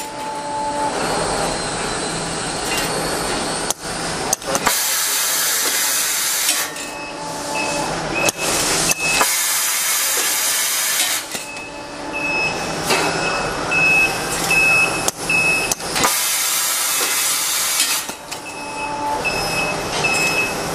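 Automatic spring end grinder with auto feeder running. Stretches of loud hissing lasting a couple of seconds recur every few seconds, broken by sharp clicks and knocks from the feeding mechanism. In places a short high tone repeats about twice a second.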